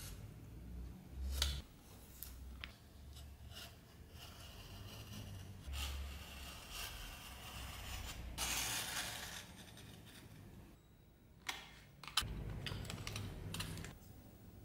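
Utility knife blade drawn through leather along a steel ruler, in scratchy cutting strokes, the longest about two thirds of the way in, with sharp clicks and taps of the ruler and tools on the workbench.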